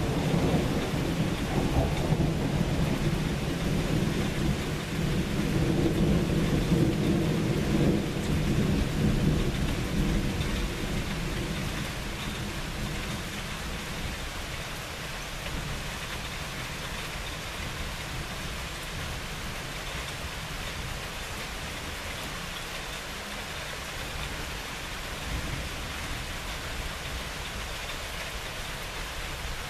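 A long rolling rumble of thunder that dies away over the first ten seconds or so, over steady rain that carries on alone afterwards.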